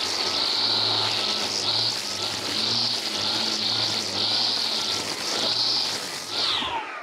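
Stihl FSA 135 R battery string trimmer running at speed with a high whine that swells and eases every second or two as the trigger is feathered. Near the end the trigger is released and the motor winds down in a falling whine.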